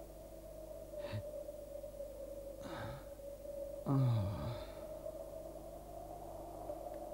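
A low voice gasping and groaning: a short breath about a second in, then two groans that fall in pitch, the second and loudest about four seconds in. A steady high drone runs underneath.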